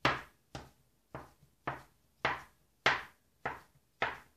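A broad metal blade chopping logs of soft curd-cookie dough into pieces, knocking on the work surface with each cut: eight sharp chops at an even pace, a little under two a second.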